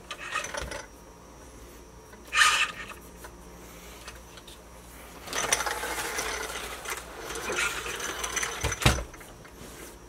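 Wheels and drivetrain of a 1/5-scale Kraken Vekta.5 RC buggy handled and turned by hand: bursts of mechanical ratcheting and rubbing, the longest in the second half, ending in a sharp knock.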